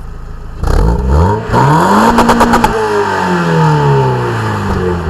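2003 Mazda MX-5's four-cylinder engine revved through its decatted exhaust: a quick blip just under a second in, then a bigger rev held briefly with a few sharp clicks at the top, then dropping slowly back toward idle.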